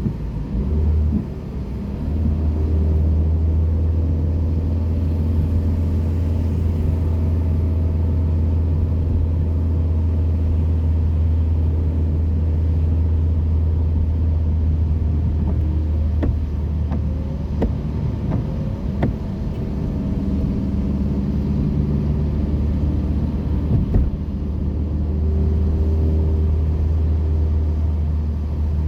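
Steady low vehicle rumble, with a few faint clicks a little past the middle.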